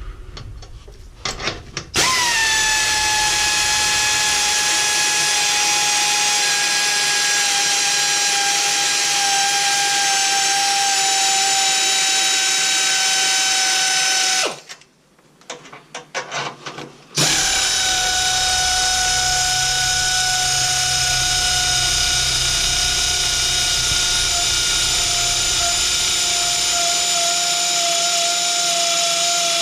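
Power drill running steadily for about twelve seconds with a whine that sags slightly in pitch, then, after a short pause with a few clicks, running again for about thirteen seconds: backing out the screws that hold the intercooler pipe.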